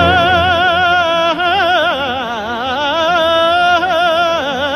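A male cantor singing a long wordless melisma in operatic cantorial style, with wide vibrato and orchestral accompaniment. He holds a note, winds through an ornamented run that dips lower about a second and a half in, holds again, and steps down near the end.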